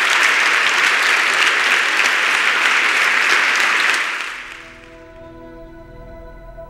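Audience applauding, fading out about four seconds in. Soft music with held tones follows.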